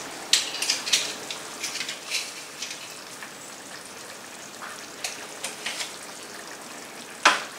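Ground beef and tomato sauce simmering in a frying pan on the stove: a steady low sizzle with scattered small pops and crackles. There is one sharper click near the end.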